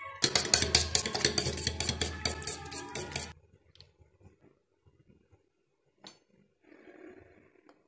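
Fork whisking an egg in a stainless steel bowl, its tines clinking rapidly against the metal, stopping about three seconds in.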